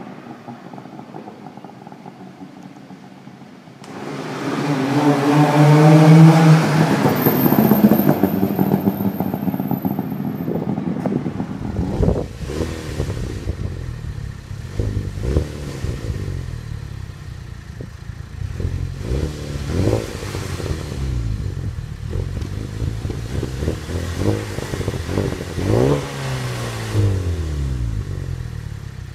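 A 1965 Saab 96's three-cylinder two-stroke engine driving past, swelling to its loudest about six seconds in and fading. Then a Chevrolet Cobalt SS turbocharged four-cylinder on its stock exhaust, standing still and being revved again and again, the pitch rising and falling with each blip.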